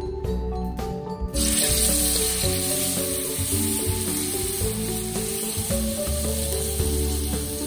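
Ground spice paste sizzling as it hits hot oil in a wok. The sizzle starts suddenly about a second in and then runs steadily, over background music.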